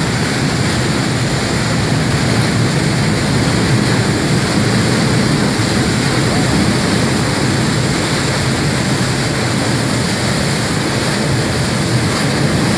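Muddy floodwater pouring out of an overflowing dam, churning in a steady, loud rush.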